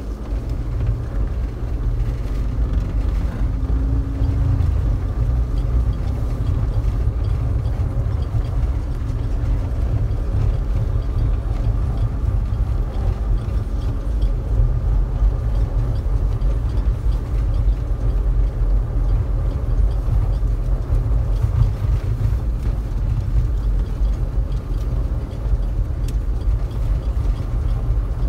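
A vehicle's engine and running gear making a steady low rumble while driving slowly, heard from inside the cab.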